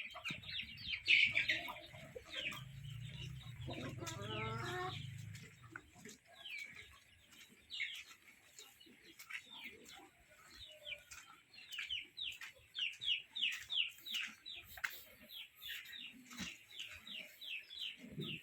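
Chickens clucking and peeping: short high falling calls come in quick runs and grow denser and more regular in the second half. Early on, a low steady hum lasts a couple of seconds.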